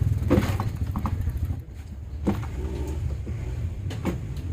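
Honda Scoopy's single-cylinder scooter engine running at a steady idle, with a few short sharp knocks over it.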